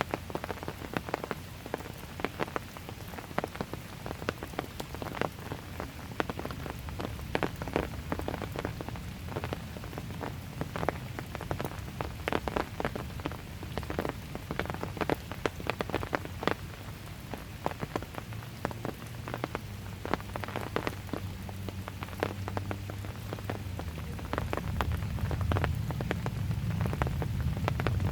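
Steady rain, with many close, irregular drip hits on a surface. A low rumble underneath grows louder over the last few seconds.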